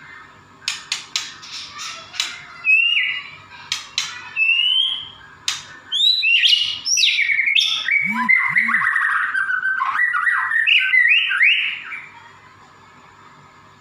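Caged white-rumped shama singing loudly: a series of sharp clicking notes, then short whistled phrases, then a long rich run of rapid notes from about six seconds in that stops abruptly near twelve seconds.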